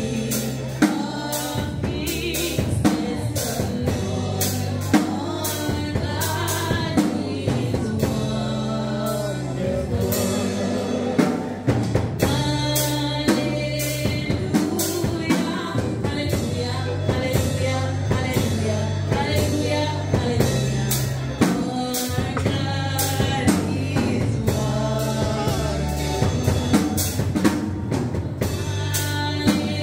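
Live gospel praise music: a woman sings lead through a microphone over a drum kit keeping a steady beat and held low bass notes, heard through the church's sound system.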